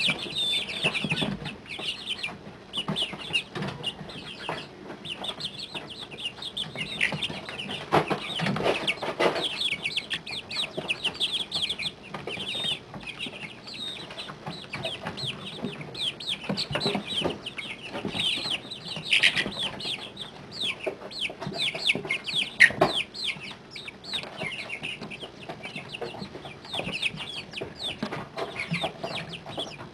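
A brood of 30-day-old mixed-breed chicks peeping without pause, many short falling peeps overlapping one another. Occasional soft thumps and rustling come through underneath.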